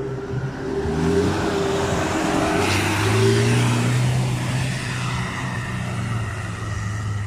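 Off-road 4x4 SUV engine revving hard under load as it climbs a muddy hill. The pitch rises over the first few seconds, with a burst of hiss about three seconds in, then holds high and steady as the vehicle pulls away up the slope.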